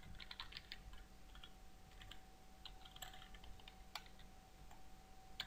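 Faint typing on a computer keyboard: quick, irregular key clicks in short runs.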